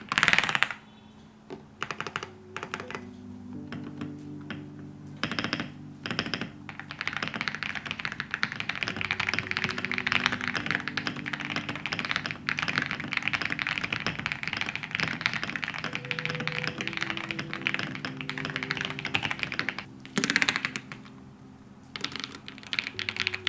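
Computer keyboard being typed on rapidly, a dense run of key clicks with a few short pauses, over soft background music.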